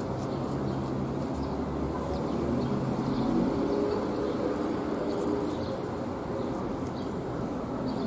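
A pigeon cooing, low wavering calls in the middle of the stretch, over a steady background hum, with a few faint chirps of small birds.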